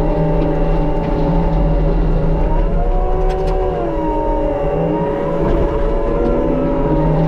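Case skid steer and its Shearex mulching head running steadily. The pitch dips and recovers twice as the mulcher works.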